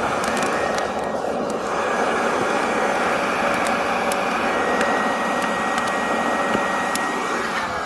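Small electric blower motor running steadily, a whine over a rush of air, blowing into a wood fire to get it going; its pitch sags near the end as it slows.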